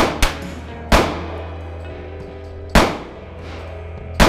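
Heritage Rough Rider single-action .22 rimfire revolver fired about four times, a sharp crack every one to two seconds with a short echo after each, over background music.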